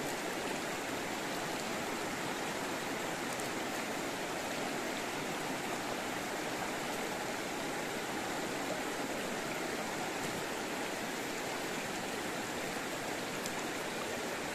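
Steady rush of river water flowing over stones.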